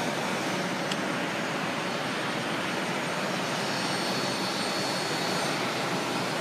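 Steady jet aircraft noise across an airport apron: an even rushing hum with a faint, thin high whine over it, and one short click about a second in.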